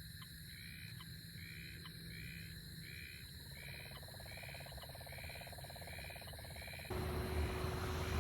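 Outdoor night-time chorus of calling animals, likely frogs and insects: short rising chirps repeat about twice a second over a steady high drone and a pulsing trill. About seven seconds in, the sound cuts abruptly to a louder rushing noise with a steady hum.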